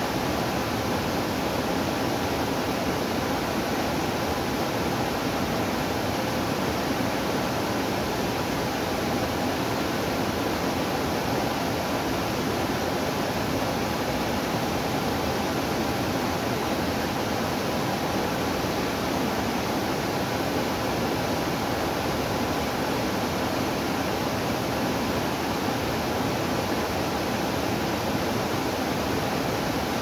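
Small waterfall pouring over a rock ledge into a pool: a steady rush of falling water.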